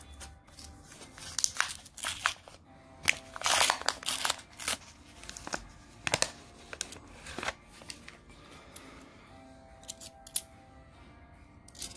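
Paper coin-roll wrapper holding 2-euro coins being torn open and crinkled, loudest about four seconds in, then coins clicking against each other as they are thumbed through the stack. Soft background music underneath.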